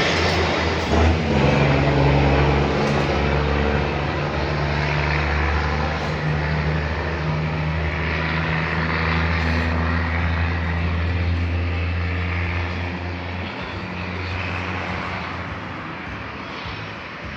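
Bass-heavy music played loud through a car sound system of six Pioneer 1400 subwoofers and 6x9 speakers, the deep bass notes dominating and shifting every second or two. It grows gradually quieter over the last few seconds.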